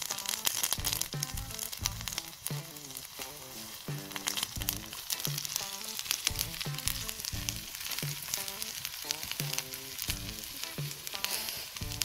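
Sliced potatoes sizzling as they fry in a skillet over a campfire, with fine popping and crackling, turned now and then with a slotted spatula. Background music with a steady beat plays throughout.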